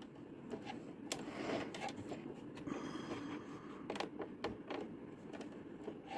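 Faint handling sounds at a sewing machine: a few light clicks and knocks and a soft rustle as the fabric is set in place.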